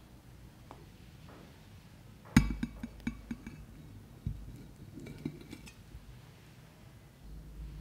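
A ceramic plate set down on a table with a sharp clink a little over two seconds in, followed by a run of smaller clinks and taps of the plate over the next few seconds.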